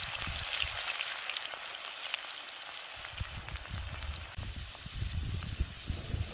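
Strips of burdock root and carrot deep-frying in a pan of hot oil: a dense sizzling crackle with many small pops. A low rumble comes and goes underneath.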